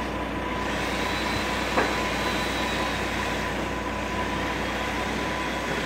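Crane's engine running steadily under load with a steady high whine, and a single knock about two seconds in.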